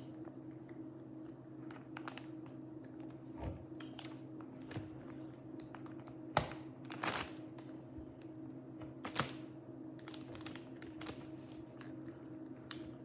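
Plastic Lego bricks being handled and pressed together: scattered light clicks and clatter, with a few louder clicks between about six and nine seconds in, over a steady low hum.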